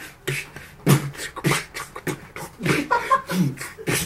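Beatboxing: a person making vocal percussion into a cupped hand, a steady beat of sharp snare- and kick-like hits.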